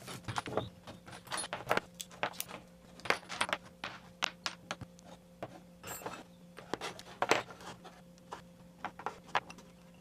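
Small metal hand tools and hardware clinking and clattering as they are taken from a toolbox and set down: a run of irregular sharp clicks and knocks.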